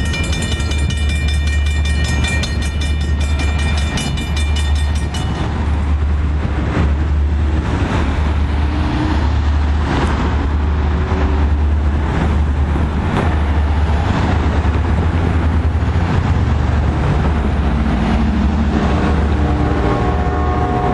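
Railroad grade-crossing bell ringing rapidly and cutting off about five seconds in, over a steady low rumble as the train pulls away. Near the end a horn sounds, several tones together.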